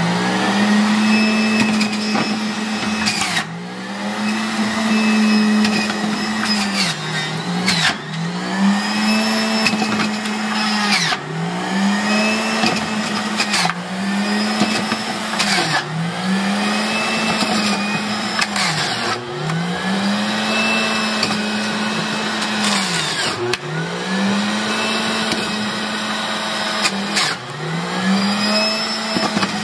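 Breville Bluicer's centrifugal juicer motor running while beets and carrots are pushed down the chute and shredded. Its hum drops in pitch and recovers about every three to four seconds as each piece loads the spinning disc, with crunching over it.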